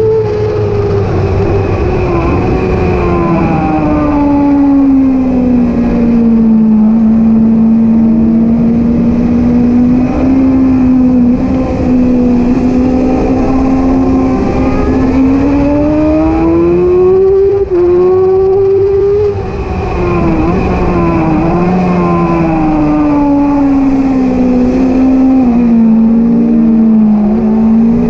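Racing motorcycle engine heard from on board at speed, with wind rushing past. The engine note falls as the rider rolls off into long leaned-over corners, holds low through them, then climbs as the throttle opens again. There is a brief dip in loudness about two thirds of the way through.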